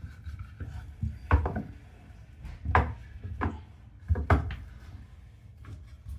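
A handful of sharp knocks and scrapes as a new bathtub drain and its adapter are worked into place with a tool.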